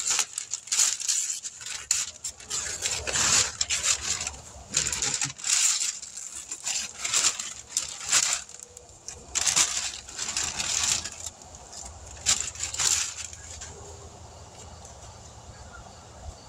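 Newspaper masking and painter's tape being torn off a truck body and crumpled into a ball by hand: repeated papery rustles and crackles that stop about three seconds before the end.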